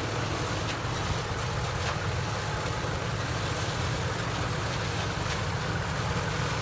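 Tomato harvester and the tractor beside it running steadily: a constant low engine rumble under an even mechanical hiss.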